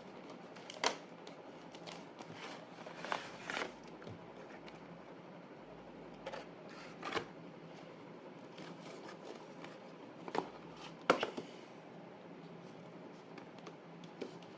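Scattered clicks, taps and rustles of a cube box and its packaging being handled. There is a sharp click about a second in and the loudest click about eleven seconds in.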